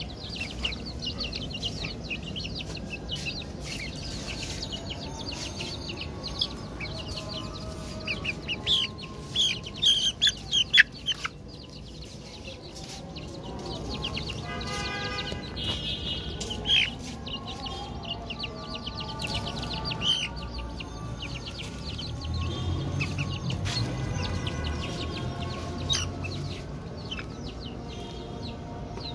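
Newborn chicks peeping: many short, high-pitched chirps in bursts, loudest around ten seconds in. Scraping and light knocks of a hand hoe working the soil run underneath.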